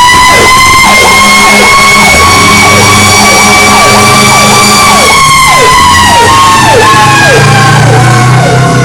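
Fire engine responding with its siren: a long wail held high that slowly winds down from about five seconds in, under a fast repeating yelp about two times a second. Several long, low horn blasts join from about two seconds in.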